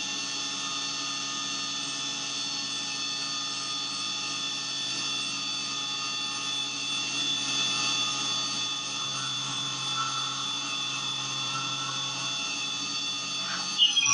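Syil X7 CNC milling machine's spindle running at a steady high speed while its end mill cuts a metal block, a constant whine with several high tones.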